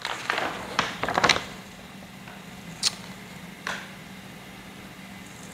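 Handling noise: a quick run of light clicks and taps in the first second and a half, then two more single sharp clicks, over a faint steady low hum.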